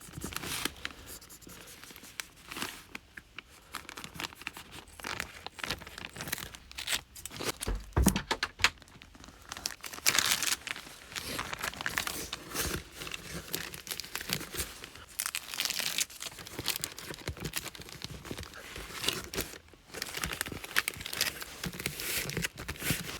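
Plastic sheeting crinkling and double-sided tape being peeled and pressed down, in irregular bouts of rustling and tearing, with a single low thump about eight seconds in.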